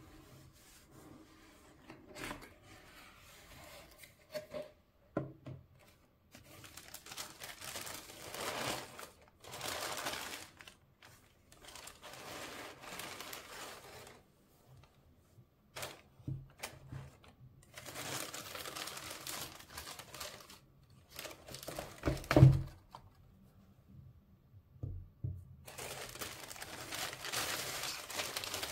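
Shoebox packaging being handled and unwrapped: paper crinkling and rustling in several spells with short pauses between, and one sharp thump about three-quarters of the way through.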